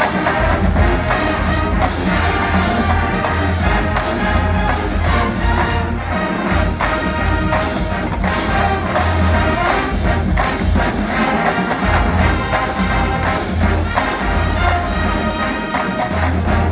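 A marching band playing a brass-led arrangement, with trumpets and trombones carrying the tune over drum hits on the beat.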